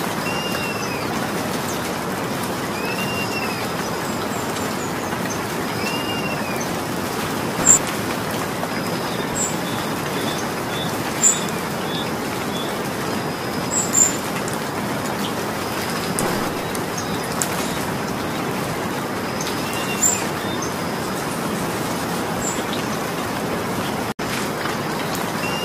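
Steady rain falling, an even hiss throughout. A bird gives a short rising-and-falling call every few seconds at the start and again near the end, and a few sharp high ticks or chirps stand out in the middle.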